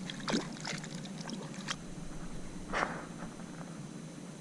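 Water splashing and sloshing around a kayak, with several short splashes and small knocks, the strongest almost three seconds in.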